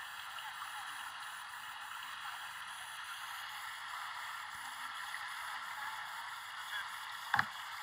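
Steady hiss with one sharp click near the end.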